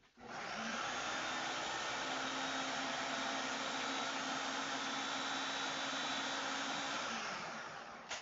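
Small electric food processor running steadily, blitzing an oil-and-herb mixture, then winding down about seven seconds in.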